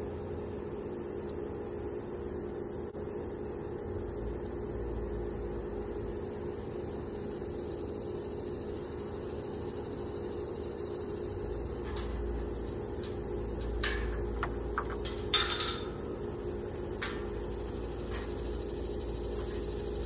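Scattered clinks of glass and dishware, sparse at first and then a quick cluster about fifteen seconds in, over a steady machine-like hum.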